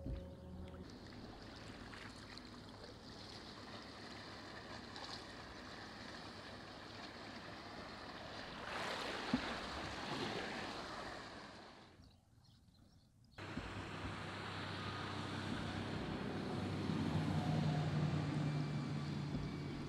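Water washing around a canoe on the river, with wind on the microphone. The sound drops out briefly about halfway through, and a low steady hum joins near the end.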